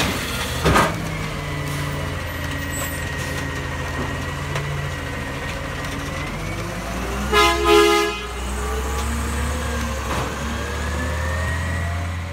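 Split-body automated side-loader garbage truck's diesel engine running as it pulls away, with a knock about a second in and a short horn toot about seven seconds in; the engine revs up near the end as the truck accelerates.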